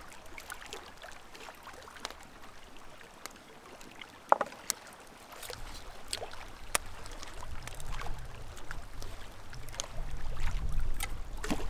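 Quiet lakeside ambience with a low rumble that grows louder from about halfway through. Scattered light clicks and taps of a metal fork on a frying pan, with one sharper tap about four seconds in.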